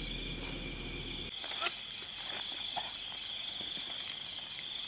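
Night insect chorus of crickets: a steady high trill, a faster pulsing chirp over it, and a sharper, higher chirp repeating two or three times a second.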